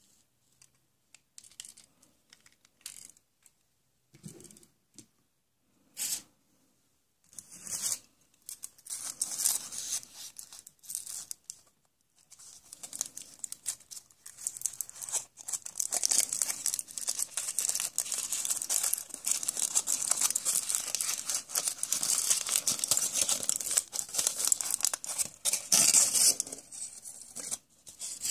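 Foil wrapper of a surprise egg being crinkled and torn open by hand, a dense crackling that runs for about twenty seconds and stops near the end. Before it, a few light clicks and knocks.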